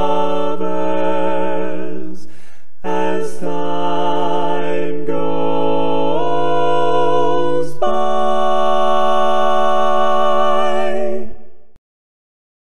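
Men's voices singing a barbershop tag a cappella in three-part close harmony: tenor, lead and baritone, with the bass part left out. The voices move through a few chord changes, with a brief breath gap about two seconds in, then hold a long final chord that fades and stops.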